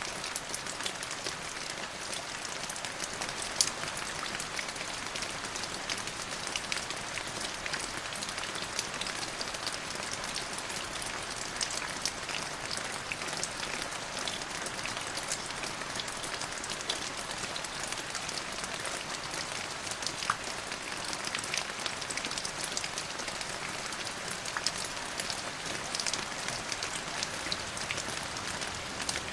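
Steady rain falling, with many separate drops striking a surface as sharp little ticks over the even hiss of the downpour.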